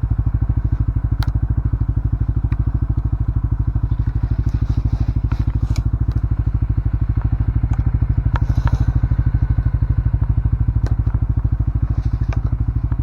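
CFMoto ATV engine running steadily with an even low pulsing, with scattered sharp clicks and rattles over it.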